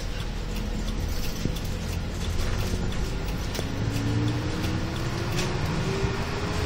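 Inside a moving route bus: steady engine and drivetrain rumble, with a faint whine that rises slowly in pitch from about two seconds in as the bus picks up speed, and a few scattered rattling clicks from the cabin.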